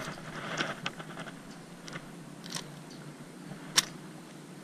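Hands unhooking a frog lure from a bass's mouth: a few small ticks, then two sharp clicks of the metal hooks and lure, the loudest near the end.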